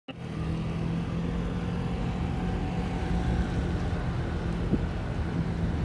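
Street and traffic noise while riding a bicycle on a wet road: a steady hiss of tyres on wet tarmac with a steady low hum from nearby motor traffic, and some wind on the microphone.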